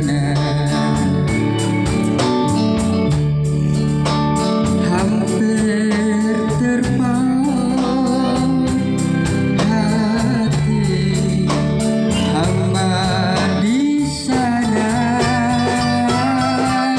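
Band playing an instrumental passage of a Malay pop song between sung verses, with a steady beat throughout and a brief drop in level about fourteen seconds in.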